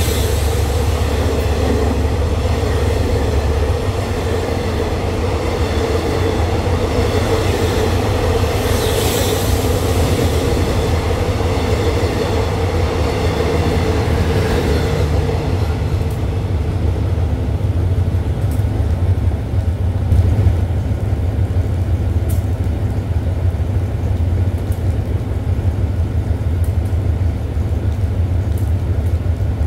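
A passenger train's coaches roll past with a steady rumble of wheels on rails for about the first fifteen seconds; then the rail noise fades away. A diesel locomotive's low engine rumble runs underneath and carries on alone, with a few faint ticks.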